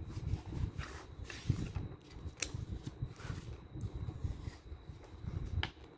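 Pages of a paperback picture book being turned and handled by hand: soft paper rustling with a couple of light taps, over a low rumble.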